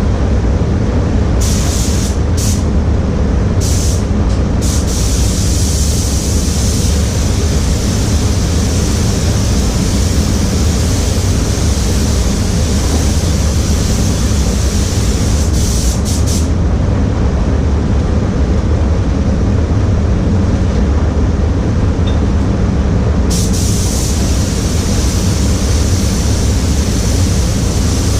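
Paint booth running with a steady low drone, under the hiss of a spray gun's compressed air switching on and off. The hiss comes in a few short bursts at first, runs as one long pass of about ten seconds, then starts again near the end.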